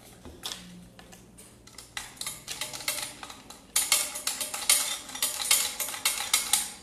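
Metal clicking and rattling from the base-lock lever of a Bosch GKS 140 circular saw as it is worked loose: a few scattered clicks, then a quick run of about eight clicks a second from a little past halfway in.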